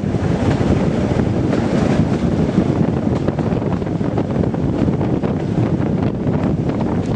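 Class 207 'Thumper' diesel-electric multiple unit running along the line: a steady drone of its English Electric diesel engine and the wheels on the rails, with wind buffeting the microphone.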